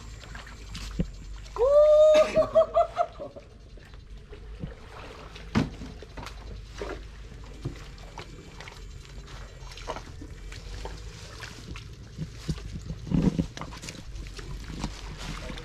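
Scattered splashes and knocks in shallow water, with one brief pitched call about two seconds in that rises at the start and then holds, pulsing.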